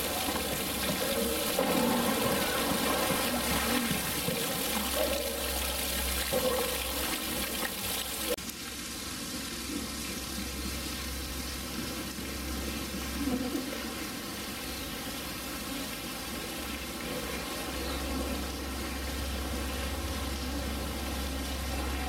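Water splashing and sloshing in a polar bears' pool. About eight seconds in, it cuts to quieter, steadier background noise with a low hum and a few softer splashes.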